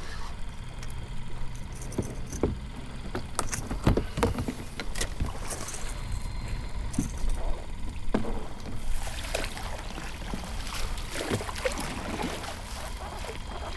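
Water sloshing and splashing around a fishing kayak, with scattered knocks on the hull, over a steady low rumble.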